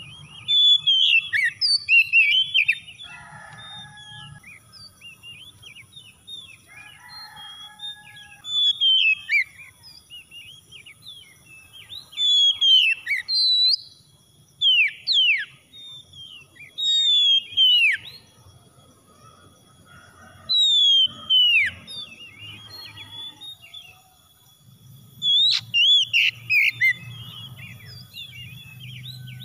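Oriental magpie-robin singing: repeated bursts of loud, clear whistled phrases with quick downward-sweeping notes, each burst a second or two long with pauses of a few seconds between.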